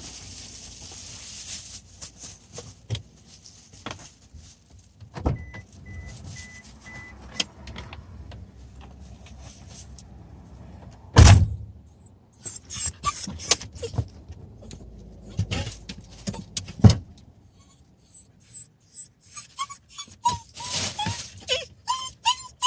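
Scattered clicks, knocks and handling noises around a car, with a short run of faint beeps a few seconds in and two heavy thumps, about halfway through and about three quarters in, like a car door shutting. Chirpy music begins near the end.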